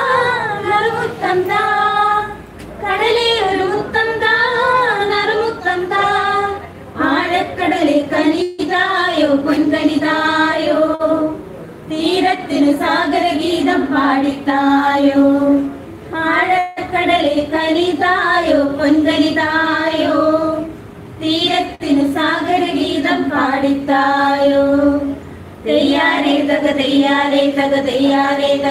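A small group of women singing a Malayalam sea song together into a microphone, unaccompanied, in phrases of a few seconds with short breaks for breath between them.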